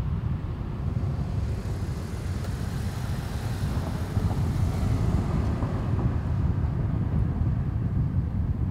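Low, steady rumble of a concrete mixer truck's diesel engine running at a street work site. A hiss swells and fades for a few seconds in the middle.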